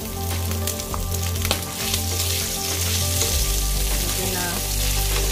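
Strips of meat frying in hot oil in a nonstick pan, sizzling steadily while they brown; the sizzle grows denser about two seconds in, just after fresh oil has been added.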